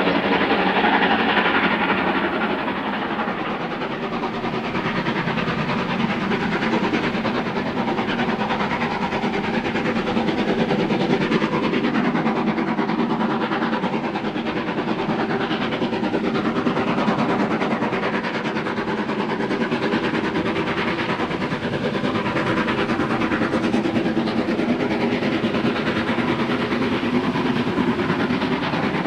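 Steam locomotive working hard up a steep gradient at the head of a passenger train, its exhaust beating heavily and steadily as it approaches and passes.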